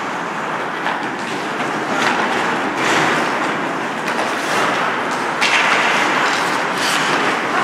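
Ice skate blades scraping and carving on a rink's ice, over a steady hiss of rink noise. A few sharper scrapes stand out, around two, three, five and a half and seven seconds in.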